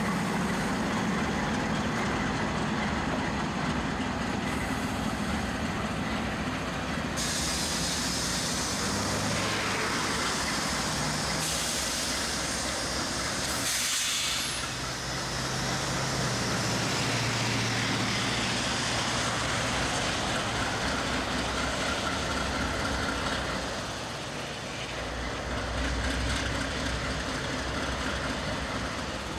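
Norfolk Southern diesel-electric freight locomotives led by a GE Dash 9-44CW running with a steady engine drone. A loud air hiss comes in about seven seconds in and stops abruptly around fourteen seconds in.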